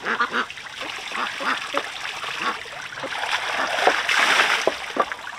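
Water splashing, with a denser rush of splashing from about three to four and a half seconds in and a few short knocks.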